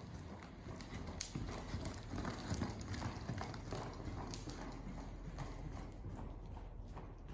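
Ridden horse's hoofbeats on deep arena sand: a run of soft, muffled thuds, loudest about two to three seconds in as the horse passes close, then fading as it moves away.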